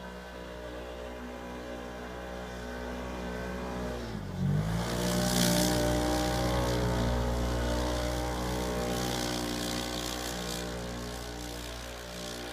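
Can-Am Commander side-by-side's V-twin engine running steadily, then about four seconds in its revs dip and climb sharply as it accelerates hard. A loud hiss of tyres spinning through snow runs with the revving for several seconds before the engine fades away.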